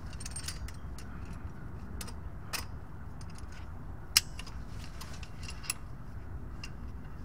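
Scattered sharp metal clicks and clinks as a Toyota Sienna CV axle's inner joint is worked onto its splines and into place, the loudest click about four seconds in, over a steady low background rumble.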